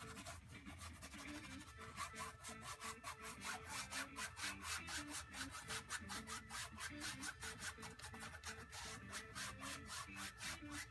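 Paintbrush scrubbing acrylic paint back and forth across a canvas in quick, repeated strokes, over soft background music.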